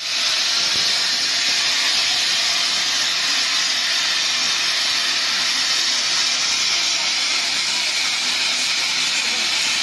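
Plasma torch of a CNC pipe profile cutting machine cutting through a large steel pipe: a steady, loud hiss of the cutting arc without a break.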